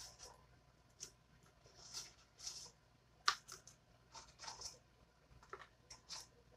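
Pieces of breaded fried cauliflower dropped by hand into a plastic container of teriyaki sauce: faint, irregular soft taps and rustles, about a dozen over several seconds.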